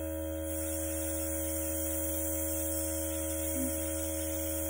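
Luminess airbrush makeup compressor humming steadily, with a hiss of air from the airbrush that grows louder about half a second in.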